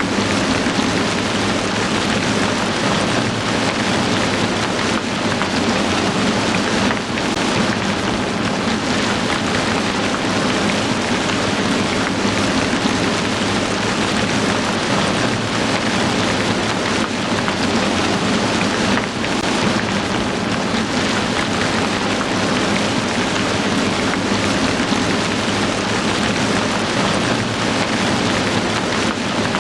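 Heavy rain falling steadily, a dense continuous hiss of drops.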